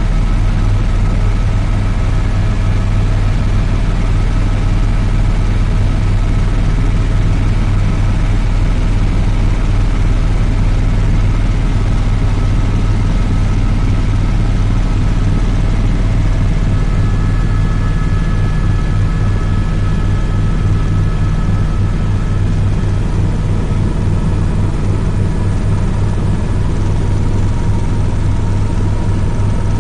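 Helicopter in flight heard from inside the cabin: a loud, steady drone of engine and rotor, with a deep rumble and a few faint steady whines above it.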